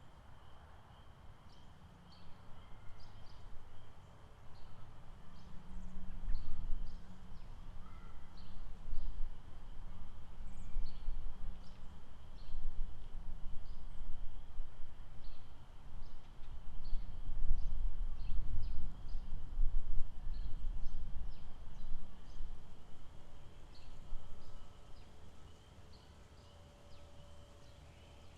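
Outdoor lake-park ambience: a steady high drone with many short, scattered high chirps from small animals. A low, uneven rumble swells through the middle and fades near the end.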